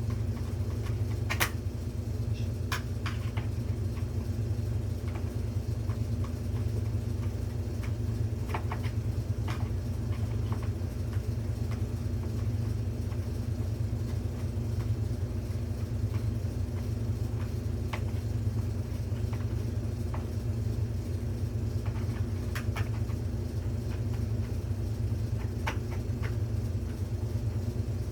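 A steady low background hum with a few scattered light clicks and taps from hand tools and small metal parts, as a bolt is worked with a flathead screwdriver.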